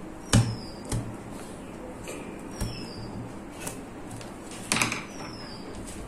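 Handling noise from a small cardboard box being turned and marked with a pen: a few sharp knocks and taps, the loudest about a third of a second in and a short cluster near the end, over a faint steady hum.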